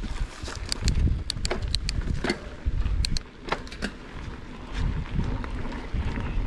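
Mountain bike riding over a loose, dry dirt trail: a rough low rumble of tyres and ride noise, with scattered sharp clicks and rattles from the bike.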